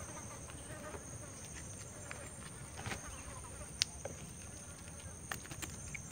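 Steady high-pitched insect drone over a low background hiss, with a few light clicks, the sharpest about four seconds in.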